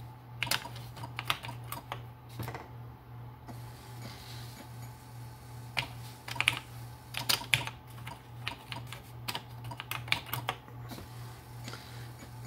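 Computer keyboard keys being typed in three quick runs of clicks as DOS commands are entered, over a steady low hum.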